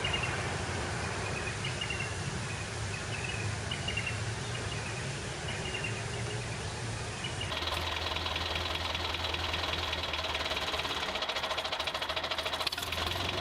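Small electric toy motor running with a fast, even buzz. About halfway through the sound changes abruptly to a denser, harsher buzz; before that, short high chirps sound over the hum.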